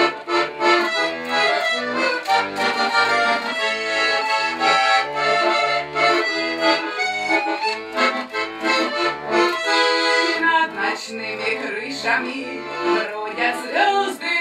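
Garmon (Russian button accordion) playing an instrumental folk-song passage: a melody over a steady, rhythmic bass accompaniment.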